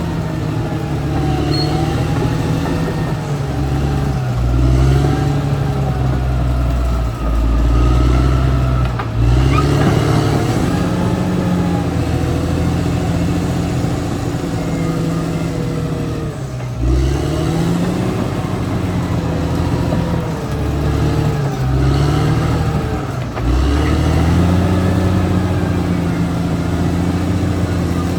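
Caterpillar D6R XL bulldozer's diesel engine working under load, its pitch dipping and climbing back again and again, with a heavy low rumble.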